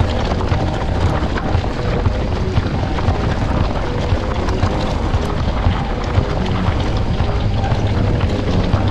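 Wind rushing over the microphone of a camera riding on a moving mountain bike, with a constant irregular rattling and knocking from the bike running over rough trail.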